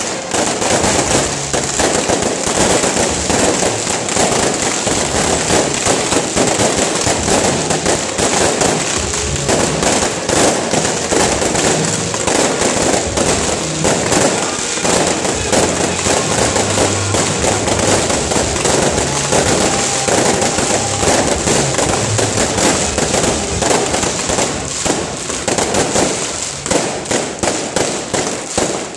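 Fireworks display going off in a dense, unbroken barrage of bangs and crackling as aerial shells burst overhead.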